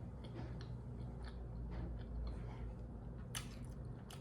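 Close-up chewing of a turkey and spinach wrap: soft wet mouth clicks and smacks, a couple of sharper ones near the end, over a steady low hum.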